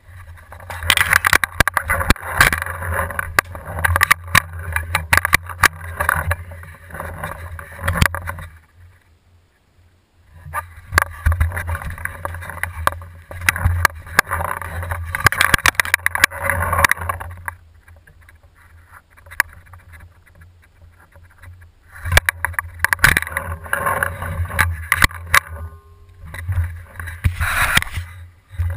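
Handling noise from a camera mounted on an Airrow bow: rustling, scraping and small knocks as the bow is carried and handled, in three long stretches with short pauses between.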